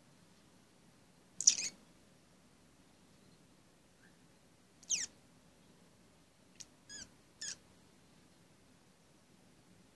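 Hamster squeaking: a loud short squeak about a second and a half in, a high squeak falling in pitch at about five seconds, and three quick squeaks near the end.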